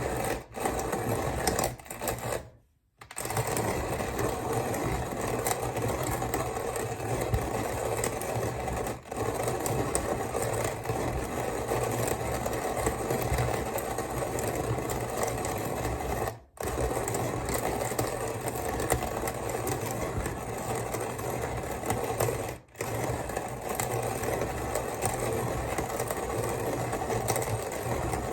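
Kalita hand coffee mill grinding coffee beans: a continuous crunching, rasping grind from the burrs as the crank turns. It breaks off briefly a few times, with the longest pause about three seconds in.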